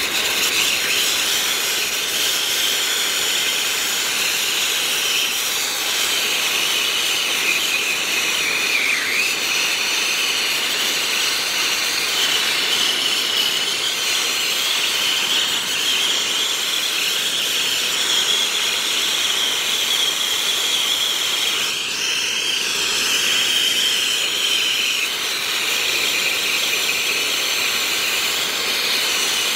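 Brazing torch flame hissing steadily on copper refrigerant-line joints, with a high whistling edge to the hiss.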